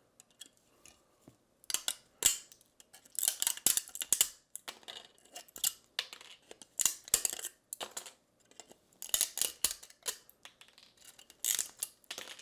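Pliers snapping support material off a 3D-printed plastic boat cabin: a run of irregular sharp clicks and cracks as the supports break away.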